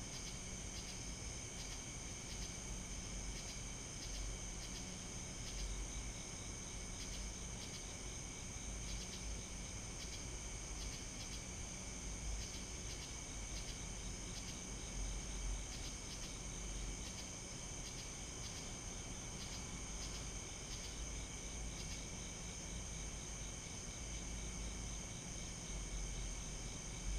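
Night chorus of crickets and other insects: several steady high trills layered together, some with a faint pulsing, over a low rumble.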